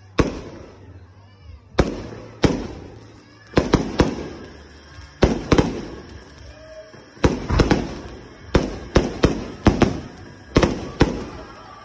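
Aerial fireworks bursting: about two dozen sharp bangs at uneven intervals, coming in quicker clusters around the middle and over the second half, each dying away in an echoing tail.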